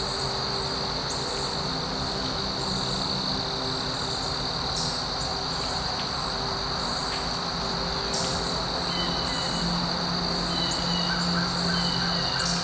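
Steady high-pitched insect chorus with a few brief bird calls over it, the sharpest about eight seconds in.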